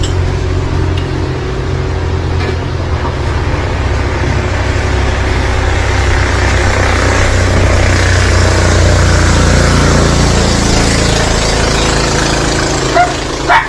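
An engine running steadily with a low hum, shifting pitch slightly a few seconds in, under a hiss that grows louder in the middle and eases off. There are a few short knocks near the end.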